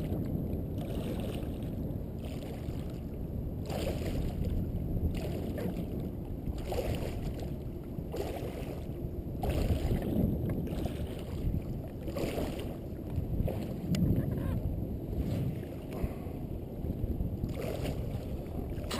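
Water splashing and lapping against a float tube in irregular surges about once a second, over a steady low rumble.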